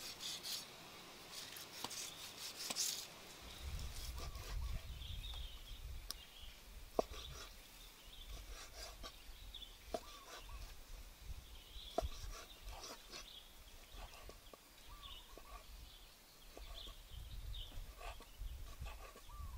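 Large knife slicing raw pork on a wooden chopping block: soft scraping and cutting with occasional sharp knocks of the blade on the wood. Faint bird calls in the background.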